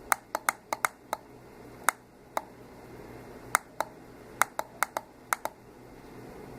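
Pushbuttons on a home-built Arduino alarm clock being pressed: about sixteen sharp clicks in quick irregular groups, with short pauses between.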